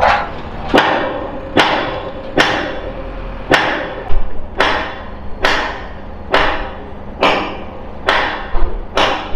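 Hammer blows on steel during the assembly of a fairground ride, struck steadily about once a second. Each blow clanks and rings on after the strike.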